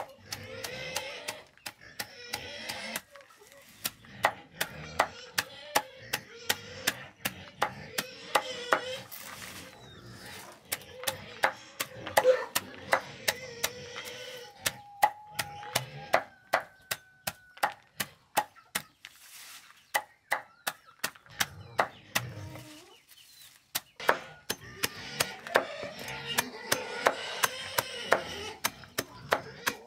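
Heavy machete-style knife chopping leafy green stems against a round wooden chopping block, brisk repeated chops about three a second, with a short pause about three quarters of the way in.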